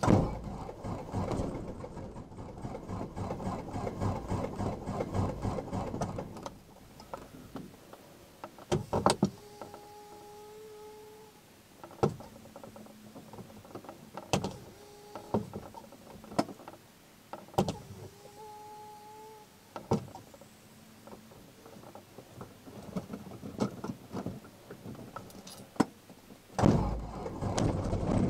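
Cessna 172's four-cylinder Lycoming engine, cold-soaked at -20 C, turned over by the starter for about six seconds without catching. Then a quieter stretch of switch clicks and a few short beeps. About a second and a half before the end the starter cranks again and the engine catches and runs.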